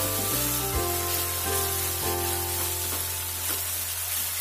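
Chopped onions and ginger-garlic paste sizzling steadily in hot oil in a ceramic kadai, stirred with a spoon that scrapes the pan now and then, over background music.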